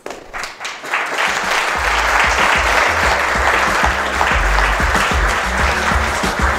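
An audience applauds. About two seconds in, instrumental music with a steady, repeating bass comes in underneath the clapping.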